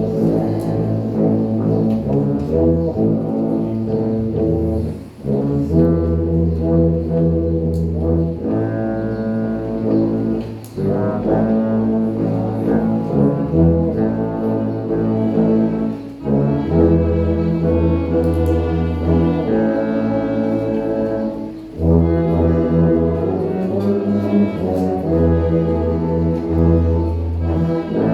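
Brass ensemble playing a hymn in slow, sustained chords, with a tuba carrying a loud low bass line. Its phrases are broken by brief breaths about every three to six seconds.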